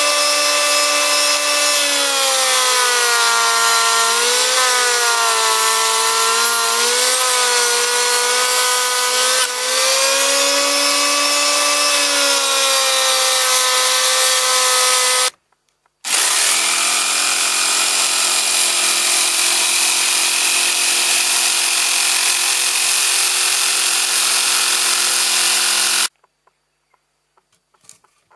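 Electric hand planer, mounted as a homemade vertical planing machine, running with a high whine that dips and wavers in pitch as it cuts wood. It cuts off about fifteen seconds in, starts again a second later with a steadier whine, and stops a few seconds before the end, leaving a few light clicks.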